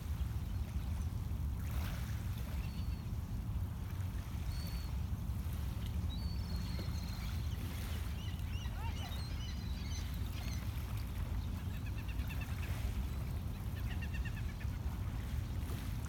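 Calm lakeshore ambience: a steady low rumble of wind and water, with faint bird chirps and whistles scattered through it and a couple of short trills near the end.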